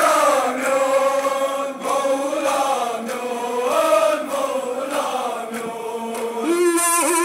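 Voices chanting a Kashmiri noha, a Shia Muharram lament, in a slow line that glides up and down. Near the end the sound wavers and breaks up for a moment.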